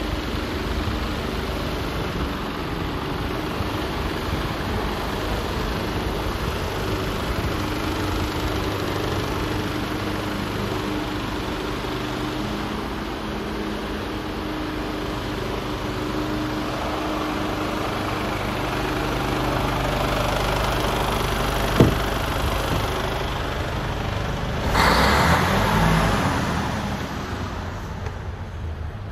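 Mercedes Actros 1842 diesel tractor unit idling steadily, a low even engine note. There is a single sharp click about three quarters of the way through and a brief louder rush of noise shortly after.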